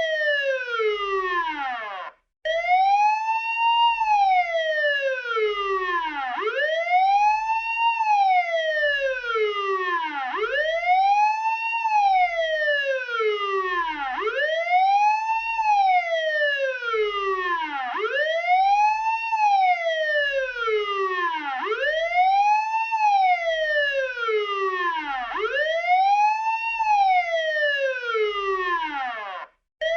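Police car siren wailing: each cycle rises quickly in pitch and then falls slowly, repeating about every four seconds. It cuts out for a split second about two seconds in and again near the end.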